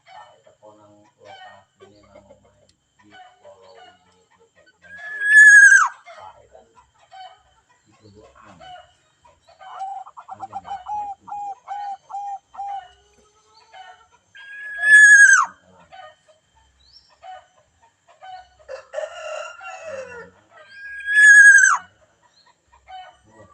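A bird's loud call, a held pitched note that drops sharply at its end, given three times several seconds apart. Between the calls are a quick run of short, even chirping pulses and a brief harsh squawk.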